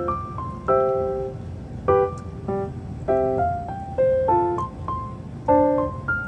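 Background piano music: soft chords struck about once every second and a bit, each ringing out briefly before the next.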